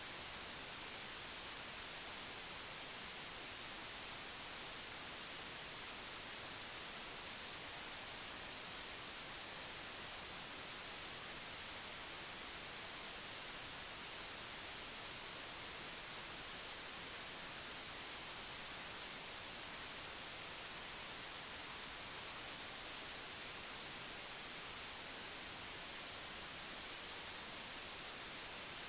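Steady, unchanging hiss like static or white noise, strongest in the high end, with no other sounds standing out.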